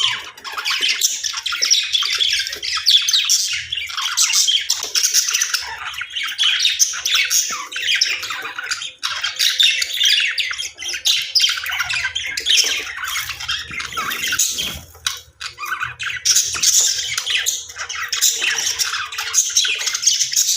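Budgerigars chattering and squawking, a dense stream of quick overlapping chirps and warbles with a brief lull about two-thirds of the way through.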